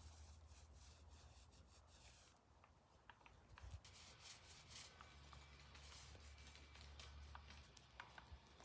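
Near silence, with a faint low hum and a few scattered faint ticks and light rubbing sounds.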